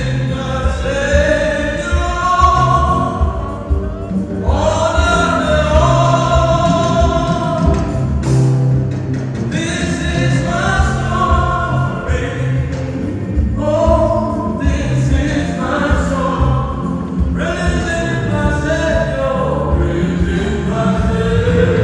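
Choir singing a gospel hymn in phrases of a few seconds each, over a steady low accompaniment with a regular beat.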